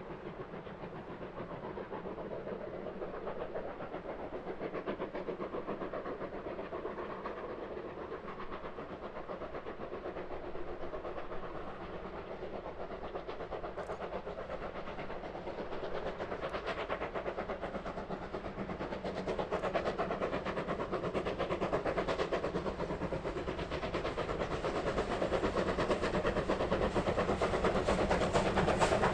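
Steam locomotive working a train, running steadily and growing louder as it approaches.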